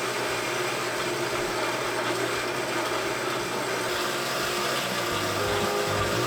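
A power tool running steadily, a loud even motor noise that cuts in suddenly at the start and holds without a break.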